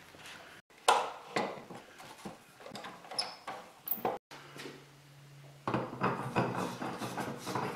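Hand work on a wooden vise: bar clamps and a screwdriver clicking and knocking against the pine, then, from about six seconds in, a fast run of clicks and scraping as the steel lead screw is turned through the jaw. A faint steady hum sits between the two, just after a cut about four seconds in.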